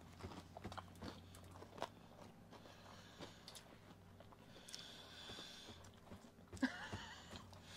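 Faint close-up chewing of mouthfuls of a soft-bun fish burger: many small wet mouth clicks and smacks, with a brief louder sound near the end.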